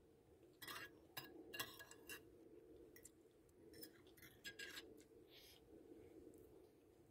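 Metal spoon and fork scraping and clinking against a ceramic bowl, scooping up the last of the food from the nearly empty bowl. The scrapes come in two short clusters, about a second in and again around four seconds in.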